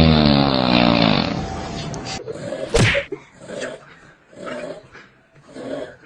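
Snoring: a long, loud snore whose pitch slides down over about two seconds, then a sharp click, then softer snoring breaths about once a second.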